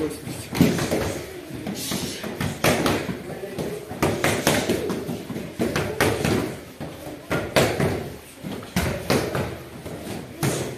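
Punches and kicks landing on focus mitts and a padded kick shield: a string of sharp smacks at an irregular pace.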